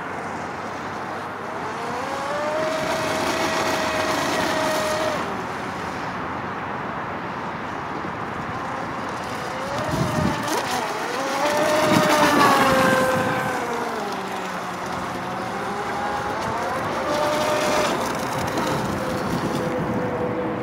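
Proboat Shockwave 26 RC speedboat's 3300kv brushless electric motor whining, its pitch rising and falling with the throttle, over the hiss of water from the hull. It is loudest about twelve seconds in, just after the boat throws up a burst of spray.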